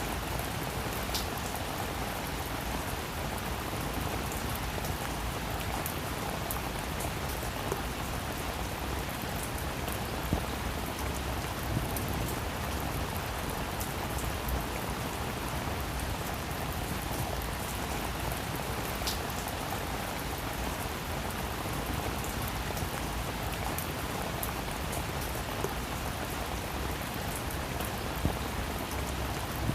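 Steady rain falling: an even hiss of rain on a surface, with scattered individual drops ticking and a few louder single drops now and then.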